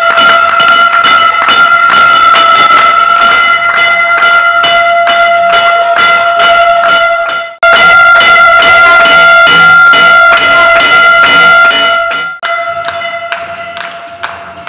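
Brass temple bells rung rapidly by hand, several clapper strikes a second, over a steady held pitched tone. The ringing breaks off abruptly twice, and near the end slows to single strikes that die away.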